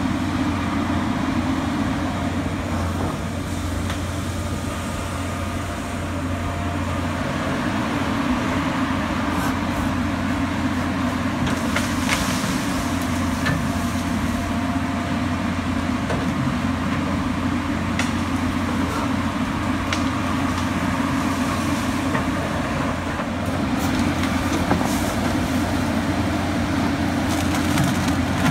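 John Deere tracked excavator's diesel engine running steadily with a low drone while the machine works, with a few sharp snaps as branches break.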